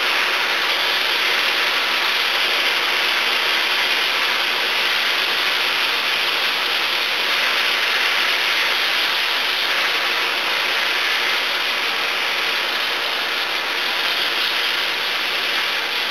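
Onions and tomato paste sizzling steadily in a hot pan as they are stirred.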